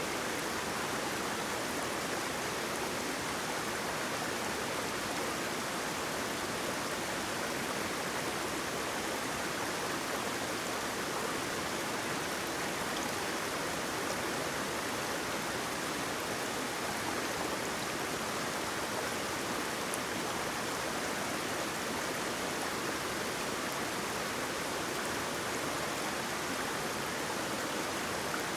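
Water rushing and splashing steadily over a small waterfall or stream, an even, unbroken hiss.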